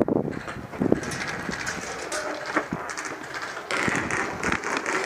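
Uneven rustling and scuffing, with several short knocks, from a player moving around with gear.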